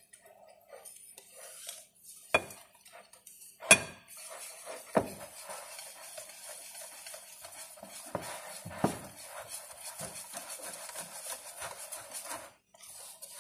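A utensil scraping and clinking in a Pyrex mixing bowl as cake batter is stirred. The scraping runs steadily, broken by four sharp clinks, the loudest about four seconds in.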